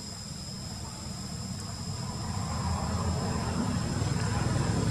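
A low rumble that grows louder through the second half, over two steady high-pitched whines.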